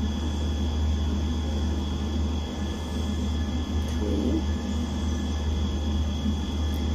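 Steady low rumbling hum with faint steady high tones above it: constant background machine or electrical noise in the room.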